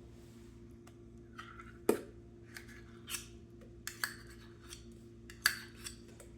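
Scattered light clicks and scrapes of kitchen utensils and containers being handled as pumpkin puree is put into a mixing bowl, about five short sharp sounds over a faint steady hum.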